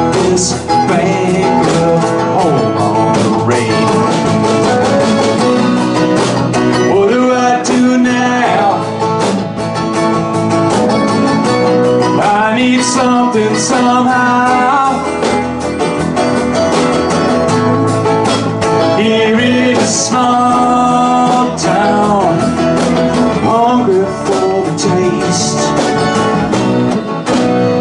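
Live country-rock band playing: acoustic and electric guitars and a mandolin strumming, with several men singing together.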